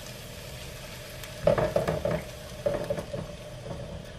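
Heavy whipping cream pouring from a carton into a hot skillet, sizzling as it hits the pan. Two louder glugs from the carton, about a second and a half in and again near three seconds in.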